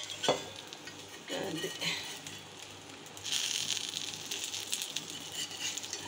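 Fish pieces shallow-frying in oil on a flat tawa, sizzling. A sharp metal spatula click comes about a third of a second in, and the sizzle grows louder about three seconds in as pieces are turned in the fresh oil.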